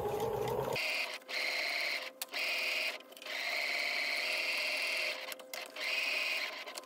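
Pfaff sewing machine with a built-in walking foot stitching around the edge of a fabric pad. It runs in bursts, with a few brief stops.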